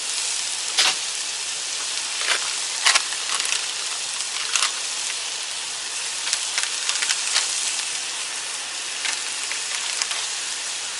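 Thin-sliced ribeye, green peppers and mushrooms sizzling on a hot Blackstone flat-top griddle, a steady hiss broken by occasional sharp clicks of a metal spatula working the food.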